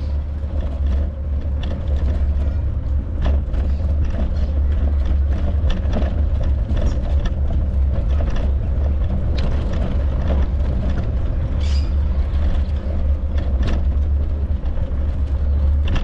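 Wind rumbling on the microphone of a moving bicycle, with scattered clicks and rattles from the bike rolling over flagstone paving.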